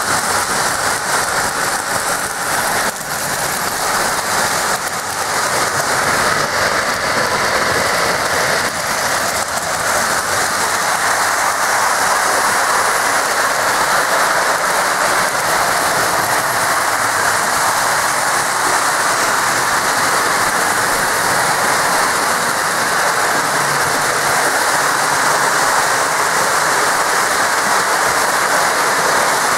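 Lionel O-gauge model trains running on three-rail track: a steady rolling rush of wheels and motors, with a few clicks in the first ten seconds.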